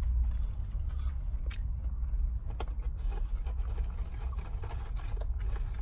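Steady low rumble of a car idling, heard from inside the cabin, with faint scattered clicks and rustles of food being handled.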